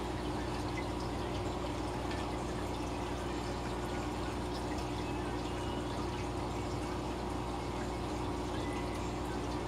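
Aquarium aeration: air bubbles from a sponge filter's lift tube and a bubble curtain rising and breaking at the water surface, giving a steady bubbling and trickling with small drip-like pops over a steady hum.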